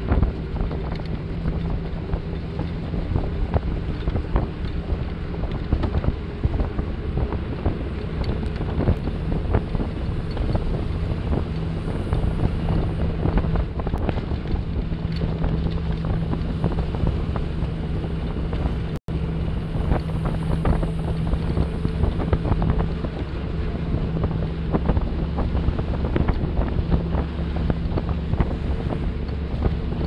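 Wind buffeting the microphone of a road vehicle driving along a highway, over a steady low engine hum and road noise. The sound cuts out for an instant about nineteen seconds in.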